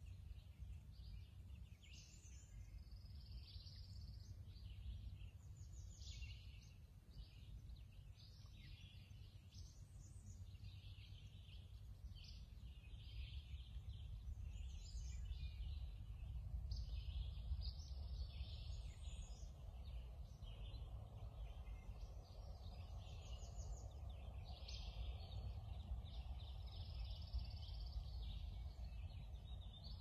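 Woodland birds singing and calling, many short overlapping chirps and phrases throughout, over a low steady rumble.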